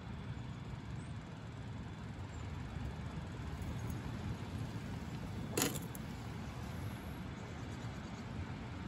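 Strong wind rumbling against a tent, a steady low roar, with one sharp clink about halfway through as a metal mug is set down on the camp table.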